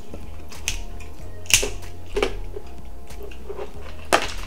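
Crab legs being cracked and snapped apart by hand: a few sharp, separate cracks of shell, the loudest about one and a half seconds in and another just after four seconds.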